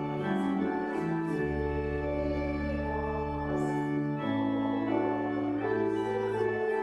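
Church organ playing slow, sustained chords over held low bass notes, the harmony changing every second or two.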